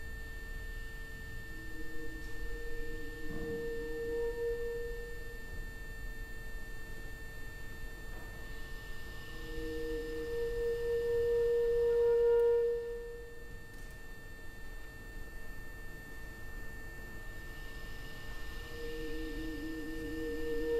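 Quiet contemporary chamber music made of sustained, nearly pure tones from the ensemble and loudspeakers: a high steady tone held throughout, and a lower tone that swells in and fades three times, loudest about twelve seconds in, with a deeper wavering tone beneath it during the first and last swells.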